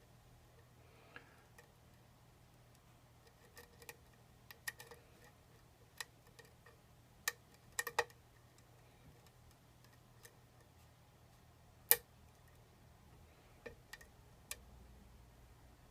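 Lock pick and tension wrench working the pins of a challenge lock: scattered small metallic clicks and ticks at uneven intervals, with the sharpest click about twelve seconds in.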